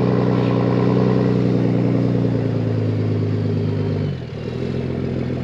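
Off-road wrecker truck's engine running steadily under way. Its note sags slightly, then falls off and gets quieter about four seconds in.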